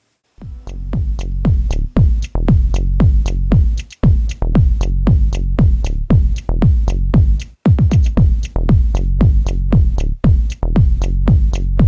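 Electronic background music with a fast, steady beat, each beat a synth hit that sweeps down in pitch. It starts about half a second in and briefly drops out twice, near four and seven and a half seconds.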